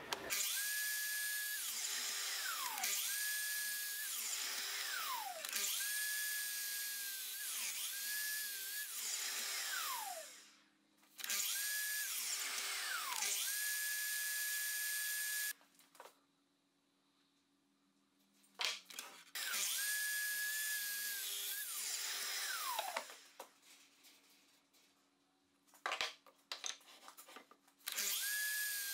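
Mitre saw cutting solid oak. The motor starts again and again, runs with a high steady whine while the blade plunges, then winds down in a falling pitch, as a row of shallow kerfs is cut side by side to clear a notch. The saw is quiet for a few seconds twice in the middle, with a few clicks.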